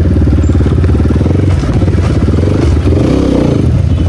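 Motorcycle engine running steadily while riding, its firing pulses dense and even throughout.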